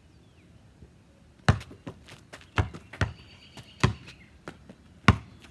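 Basketball bouncing: about five sharp, loud thuds at uneven spacing, with fainter taps between them.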